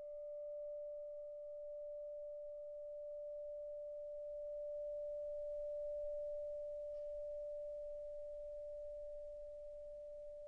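A single pure tone held steadily at one pitch, with a faint second tone an octave above it, part of the film's composed soundtrack. It swells slightly toward the middle and fades a little near the end, with a faint tick about seven seconds in.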